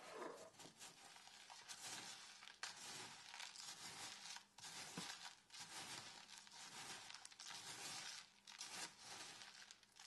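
Coarse bath salts, pink Himalayan among them, being stirred by hand in a plastic tub: a faint, continuous gritty rustling and crunching of the crystals, with a few brief pauses.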